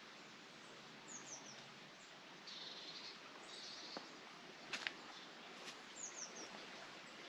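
Faint outdoor ambience with small birds chirping: short high falling chirps about a second in and again near the end. A few sharp clicks a little past the middle are the loudest sounds.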